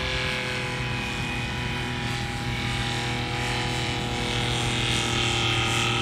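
Paramotor's engine and propeller running steadily in flight overhead, as one unbroken drone. It grows a little louder toward the end as the paramotor comes closer.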